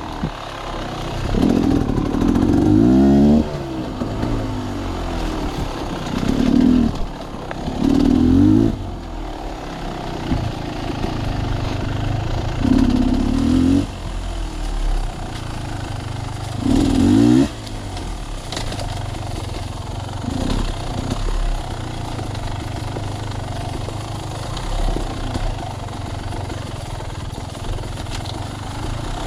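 Sawmill machinery running with a steady engine drone, broken every few seconds by louder surges of one to two seconds, some with the pitch sweeping up or down.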